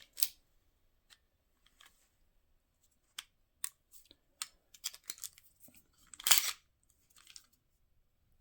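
A 1911 air pistol being taken apart by hand: a series of light metallic clicks, then a louder scraping rasp about six seconds in, as parts such as the slide are worked off the frame.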